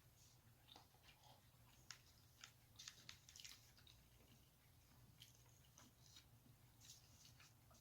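Faint chewing and biting of food, with short crisp crunches and mouth clicks scattered through and a cluster of louder ones around three seconds in.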